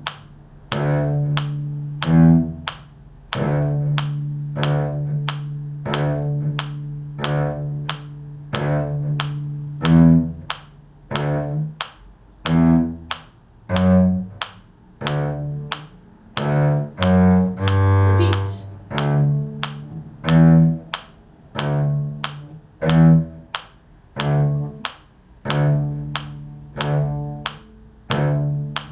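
Cello playing a slow bass line in G, some notes held and some short, reaching down to about the G below the bass staff. A steady quarter-note click, about every 0.6 seconds, keeps the tempo.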